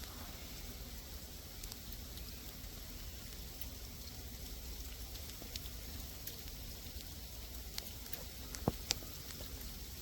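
Sleet falling: a faint, steady hiss with scattered sharp ticks of ice pellets striking surfaces, a few louder ticks near the end.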